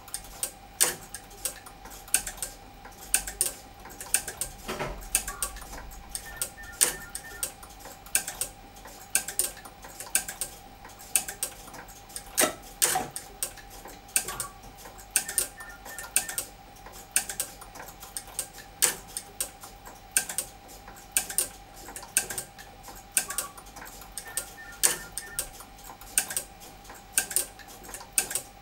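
Master clock 36 and GMT34 relay sets clicking away: relays pulling in and dropping out on the clock's timed pulses, a busy clickety-clack of sharp clicks, several a second in an uneven pattern. A faint steady thin tone runs underneath.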